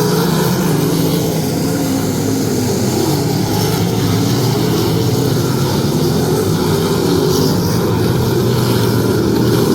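Sprint car engines running hard around a dirt oval, a steady loud drone whose pitch wavers up and down as the cars go through the corners.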